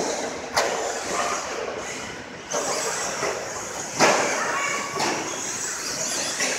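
RC stadium trucks running on a dirt track: a steady high hiss, broken by three sharp knocks about half a second, two and a half and four seconds in.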